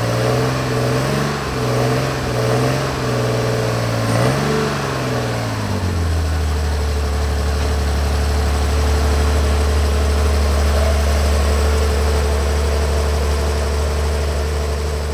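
Air-cooled Porsche 911 flat-six racing engine with intake trumpets, running at a raised, uneven idle whose pitch rises and falls about once a second while the throttle linkage is worked by hand. About five seconds in it drops to a lower, steady idle.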